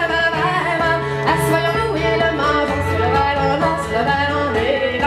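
Traditional folk song played live by a small acoustic band: fiddle, strummed acoustic guitar and a plucked long-necked string instrument, with a voice singing over them.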